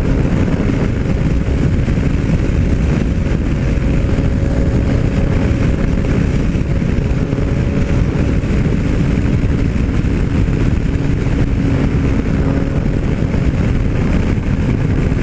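Yamaha MT-09 Tracer's 847 cc three-cylinder engine running at steady revs while cruising at about 130 km/h, mixed with heavy wind rush on the microphone.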